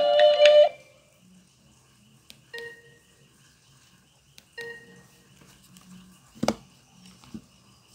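A Kyocera phone ringtone, a quick melody of bright notes, ends within the first second. Then it is mostly quiet, with two short identical beeps about two seconds apart and a sharp click near the end.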